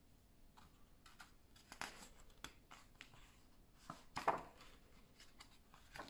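Faint rustling of a picture book's paper page being handled and turned, with the loudest crinkle about four seconds in as the page flips over, then a light brush as the hands flatten it.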